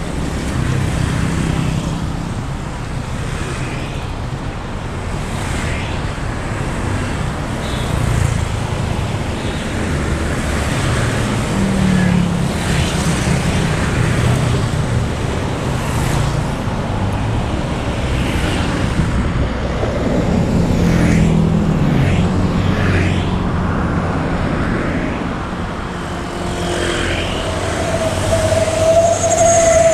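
Road traffic: motorcycles and cars running past in a steady stream of engine rumble and tyre noise, swelling as each one goes by. Near the end a loud, slightly falling tone is held for about two seconds.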